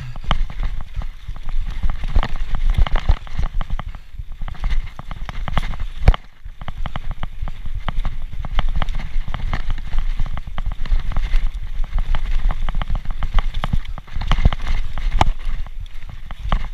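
Specialized Turbo Levo electric mountain bike riding fast over rough, rooty forest dirt: a constant clatter and rattle from the bike over the bumps, over a low rumble, with one sharp, loud knock about six seconds in.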